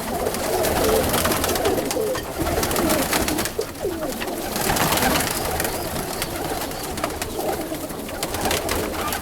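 Many domestic pigeons cooing together in a loft, their calls overlapping without pause, with scattered clicks and rustling.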